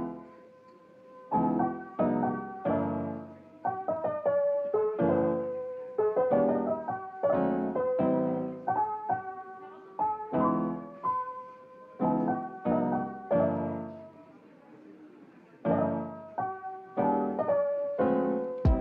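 Background piano music: a slow lofi-style piece of struck chords and melody notes, each left to ring and fade, with two short pauses between phrases.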